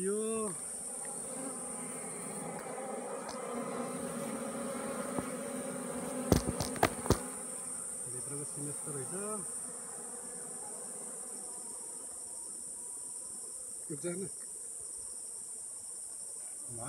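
Honeybees buzzing around their nest in a hollow tree, a steady hum over a constant high-pitched insect drone. A few sharp knocks come about six to seven seconds in.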